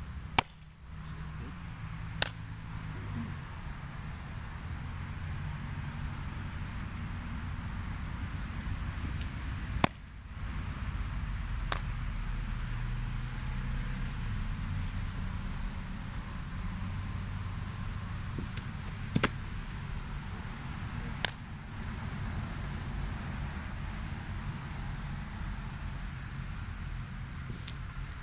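Steady, high-pitched chorus of crickets, with a few sharp pops in between. The loudest pops come about every ten seconds.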